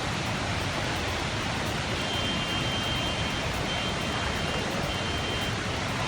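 Rushing floodwater making a steady, even roar.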